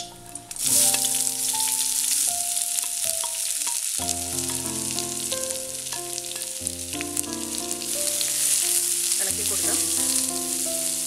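Chopped shallots dropped into hot coconut oil in an aluminium cheenachatti (wok) begin sizzling about half a second in, then keep frying with a steady sizzle as they are stirred in the pan.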